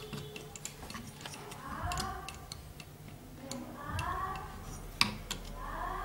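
Light, irregular ticks and clicks of a screwdriver and fingers working at an STR regulator IC on its aluminium heatsink, on a CRT TV's power supply board, as the part is unscrewed for removal.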